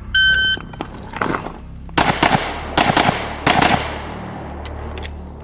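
A shot timer gives one short electronic beep, then a pistol fires about six quick shots in pairs, starting about two seconds in.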